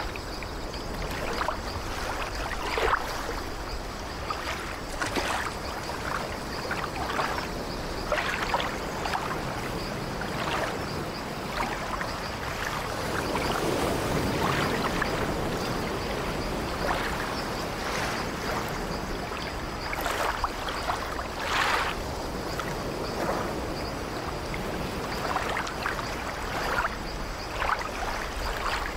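Ocean surf: a steady wash of water broken by frequent short splashes of breaking waves, with a longer, fuller surge about thirteen seconds in.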